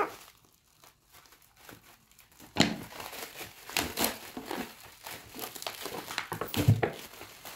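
Plastic parcel wrapping and packing tape crinkling irregularly as it is pulled and cut open with scissors, starting about two and a half seconds in. There is one louder thump near the end.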